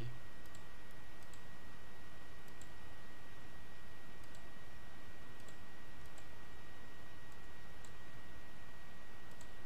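Computer mouse button clicking, single clicks about every second or so, while anchor points are placed one by one. A steady hiss and a thin steady high tone run underneath.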